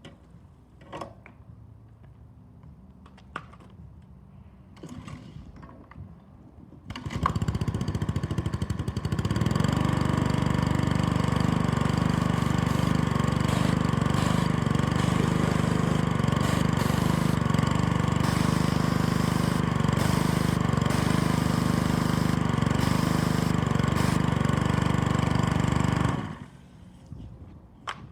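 Honda gas engine of a Husky 3000 PSI pressure washer starting after a few light knocks, coming up to speed over a couple of seconds and running steadily. It shuts off about two seconds before the end.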